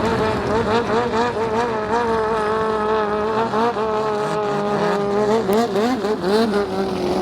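Racing speedboat engine revving, its pitch rising and falling in quick repeated blips over a steadier engine drone.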